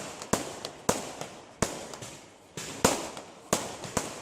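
Aerial display fireworks bursting overhead: a string of sharp bangs roughly every half second, each trailing off briefly, with crackling in between.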